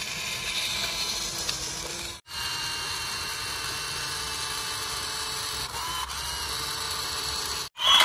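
Small electric motor of a radio-controlled toy tractor running with a steady whir. The sound cuts out briefly twice, about two seconds in and near the end.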